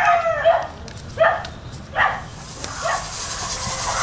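A dog barking three short times, about a second apart, just after a rooster's crow trails off.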